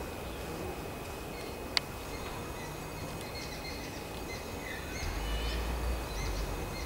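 Steady background noise with faint, scattered bird chirps. There is a single sharp click a little under two seconds in, and a low rumble in the last two seconds.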